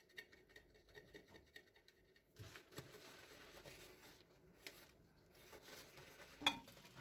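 Faint handling noises: light scrapes and small taps of objects being moved, with one sharper click about six and a half seconds in.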